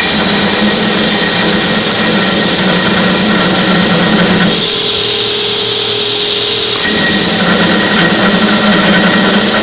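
Wilmont 2x72 belt grinder running loud and steady as the edge of a titanium plate is held against the abrasive belt, grinding it flat. The tone changes for a couple of seconds in the middle, then the heavier grinding tone returns.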